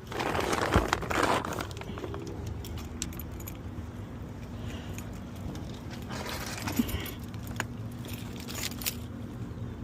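Metallic clinking and rattling as a power wheelchair is handled and loaded into a car, with a louder rustle in the first second or so and a faint steady hum underneath.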